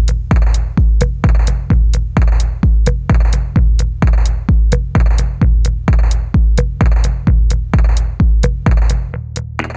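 Background electronic music with a steady heavy kick drum about two beats a second and crisp hi-hat clicks between; the kick drops out near the end.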